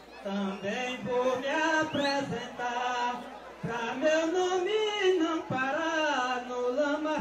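A man chanting improvised verse unaccompanied in the drawn-out declaimed style of a maracatu rural mestre, in long gliding phrases with a short break about halfway and then one long arching line.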